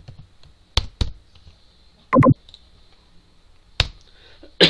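Computer keyboard key presses: four sharp, separate clicks as a console command is finished and entered, with a short, louder sound about two seconds in.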